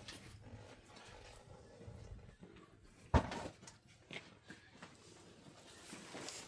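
A single sharp knock about three seconds in, with a few fainter clicks and knocks around it.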